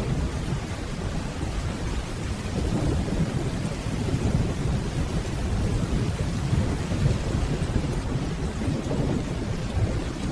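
Steady rainfall under a continuous low, deep rumble of distant rolling thunder.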